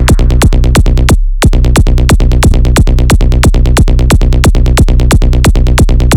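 Electronic techno track with a fast, steady drum-machine beat of about four hits a second over a droning bass. The beat drops out for a moment about a second in, leaving only the bass, then comes back in.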